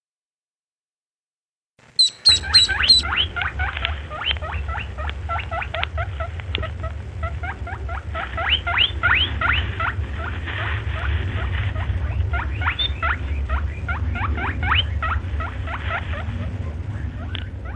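Duckling peeping: a fast run of short, rising chirps, several a second, over a steady low hum. It starts about two seconds in, after silence.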